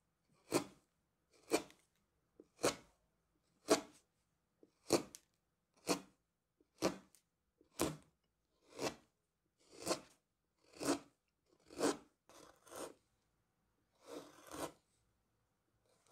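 Carving gouge slicing through tulip tree wood, one short paring cut about every second, a dozen in a row; the last few cuts are softer and come in pairs.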